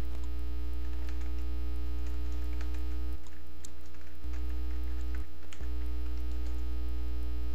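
Steady low electrical mains hum on the recording, which weakens briefly twice in the middle, with a few faint computer-keyboard clicks as a tag is typed.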